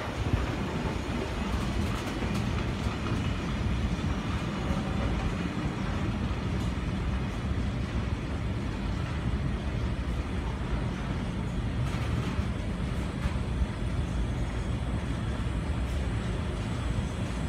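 Empty flat wagons of a freight train rolling past, a steady rumble of steel wheels on rails with scattered clicks and clanks.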